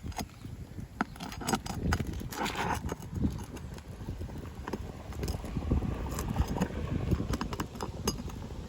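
Irregular clicks, knocks and short scrapes of a metal roof snake being worked under asphalt shingles to pry out roofing nails, over a low rumble.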